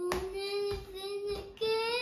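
A young girl singing, holding long, steady notes, then stepping up to a higher note about one and a half seconds in.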